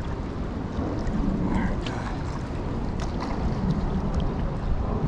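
Wind buffeting the microphone: a steady, gusting low rumble with a few faint clicks.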